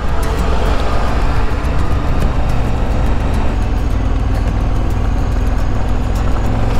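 KTM 1190 Adventure R's V-twin engine running steadily as the motorcycle comes down a steep gravel pass road, with wind rush and scattered sharp ticks from the tyres on gravel.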